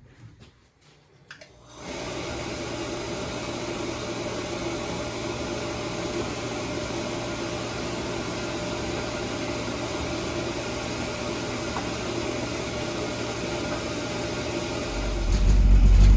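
Boiler equipment starting up: a steady whooshing hiss comes on suddenly about two seconds in, joined near the end by a louder low rumble.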